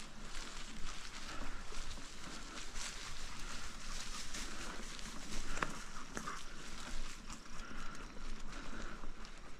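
Bicycle rolling along a dirt trail covered in dry fallen leaves, steady tyre noise with leaves crackling under the wheels.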